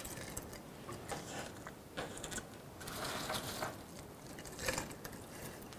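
Dry potpourri pieces rustling and clicking faintly and irregularly as they are scooped by hand and dropped into a small glass vase.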